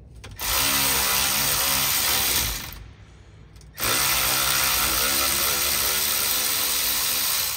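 Cordless power tool running in two steady bursts, about two seconds and then about four seconds with a short pause between, spinning bolts out of a van's rear brake hub.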